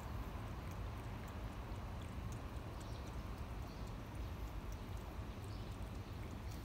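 A kitten eating soaked food from a bowl: small wet lapping and chewing clicks, scattered and irregular, over a steady low rumble.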